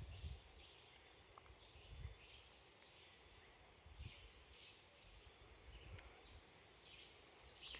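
Faint insect chorus: a steady high-pitched whine with short chirps repeating between it, and soft low bumps about every two seconds.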